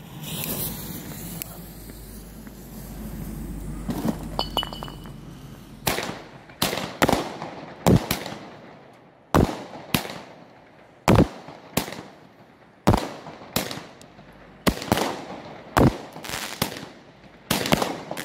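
After about six seconds of low hissing, a consumer firework battery (cake) fires a string of loud shots, roughly one a second, each trailing off briefly.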